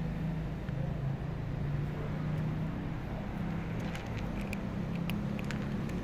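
A steady low mechanical hum, like a motor running, continues throughout. From about four seconds in come a run of short sharp clicks: a cat crunching dry kibble from a plastic plate close by.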